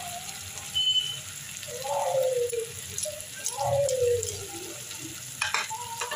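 Oil sizzling in a kadai under freshly added mustard paste and spices, over onion and tomato. Twice a falling, voice-like sound rises above the sizzle, and a few light clicks come near the end.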